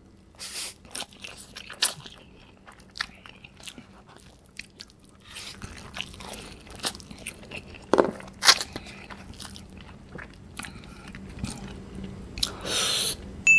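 Close-up eating sounds of saucy instant ramen noodles: several long slurps of noodles being drawn into the mouth, with chewing and wet mouth clicks between them.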